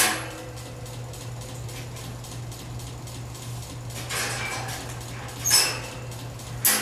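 A few separate metallic clinks and rattles from a wire dog crate's door being handled and opened, over a steady low hum.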